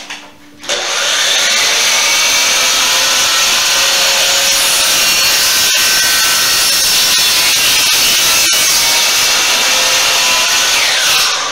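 DeWalt sliding miter saw (chop saw) starting up and running loud for about ten seconds as its blade cuts through wood, then winding down near the end.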